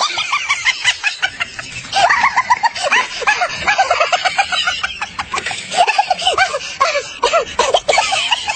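Chickens clucking, many short calls in quick succession, with scattered clicks.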